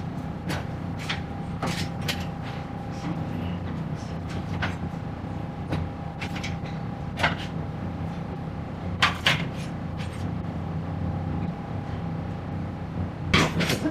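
Restaurant kitchen and counter background: a steady low hum with a faint steady whine, broken by scattered clinks and knocks of crockery and utensils, two louder ones about nine seconds in.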